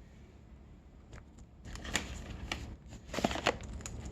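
A pistachio shell being worked open: short sharp clicks and cracks in small clusters, the loudest a little after three seconds in.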